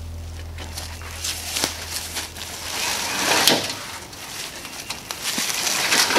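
Culvert pipe section being rolled and pushed over grass and forest litter: uneven swells of rustling and scraping with a few small knocks, loudest about three and a half seconds in and again near the end.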